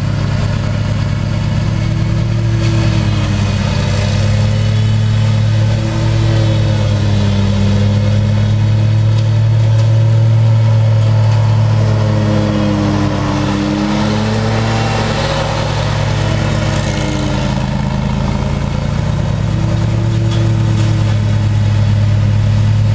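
2016 Exmark Lazer Z X-Series zero-turn mower with an EFI engine, running steadily while mowing. Its drone swells and wavers in pitch as it comes close and moves away, loudest about ten seconds in.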